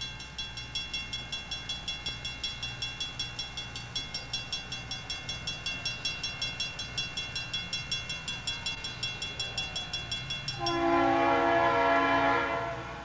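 Grade-crossing warning bell ringing rapidly, about four strokes a second. Near the end a CSX freight locomotive's horn sounds one long chord of about two seconds as the train approaches the crossing.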